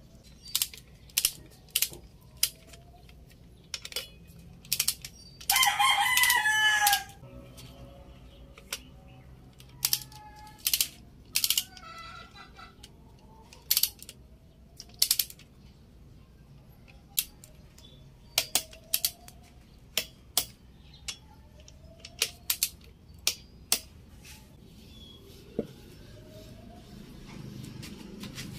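Sharp metallic clicks and clinks of a wrench working the connecting-rod cap bolts on a bare Suzuki K6A engine block, scattered irregularly throughout. A rooster crows once about six seconds in, as loud as the loudest clicks, and faint short calls follow later.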